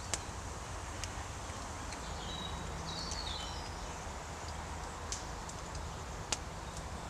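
Outdoor woodland ambience: a steady background hiss broken by a few sharp clicks, with a short burst of bird chirps about two to three seconds in.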